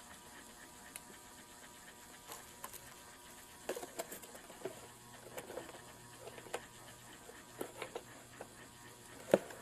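Faint scattered taps, clicks and rustles of objects being handled, busier after a few seconds, with a faint low hum coming in about halfway and one sharper knock near the end.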